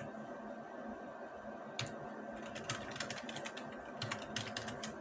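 Typing on a computer keyboard: irregular key clicks, sparse at first and coming quicker from about two seconds in.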